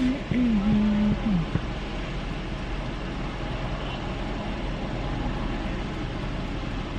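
Car engine idling, heard from inside the cabin as a steady low hum and rumble. A short hummed voice sound rises and falls over it in the first second and a half.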